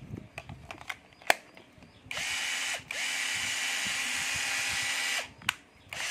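National cordless drill-driver run by its trigger: a steady motor whine for about three seconds with a brief let-off near its start, then started again just at the end. A few sharp handling clicks come before the first run.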